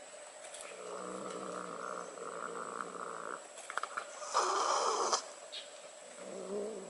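Domestic cat growling low and steadily over its food bowl, then letting out a louder, harsher growling cry about four and a half seconds in, as a dog brings its head close to the bowl: food guarding.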